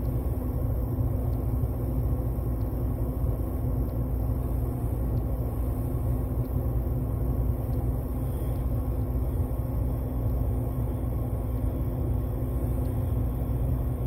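Steady low rush of air drawn into a return-air grille by a running HVAC air handler's blower, with a steady hum underneath.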